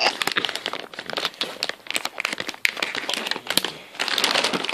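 Plastic shrink-wrap on a toy bowling set crinkling and crackling in quick, irregular bursts as it is pulled and handled. Near the end it thickens into a denser crackle as scissors cut through the wrap.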